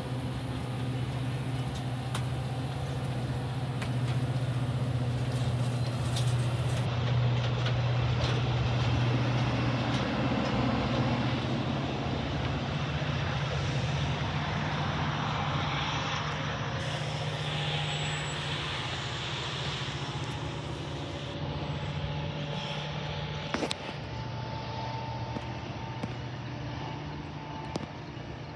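Metra bilevel commuter train passing close by: steady rumble of its steel wheels on the rails, with scattered clicks and a steady low hum. The hum drops away about three-quarters of the way through, and the noise eases off near the end.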